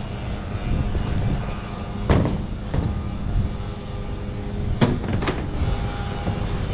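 Steady low machinery hum with several sharp knocks: two about two to three seconds in, and two more about five seconds in.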